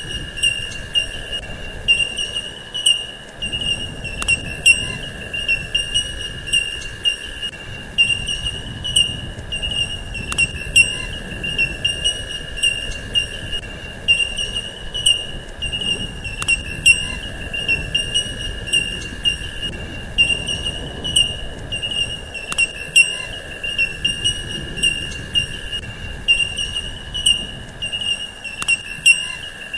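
Continuous insect chorus: a steady high-pitched trill with a fainter steady tone beneath it, broken by scattered sharp clicks.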